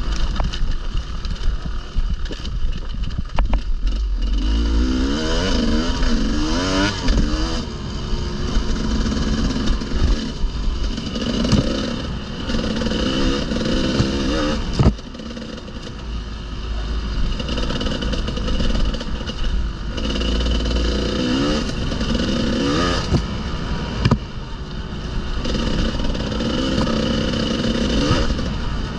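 Enduro motorcycle engine on the move, revs climbing and dropping again and again as the rider works the throttle and gears over trail terrain, with occasional knocks and clatter.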